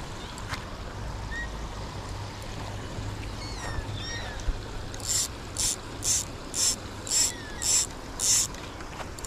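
Spinning reel ratcheting in short rasping bursts, about two a second, starting about five seconds in, as the handle is cranked against a hooked carp. Faint bird chirps come before it.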